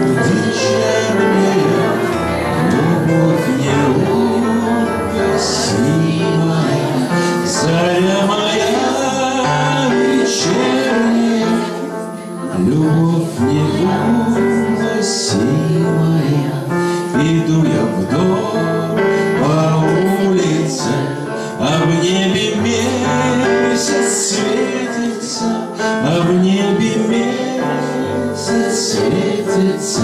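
Live music: a Yamaha electronic keyboard playing a song, with singing over it.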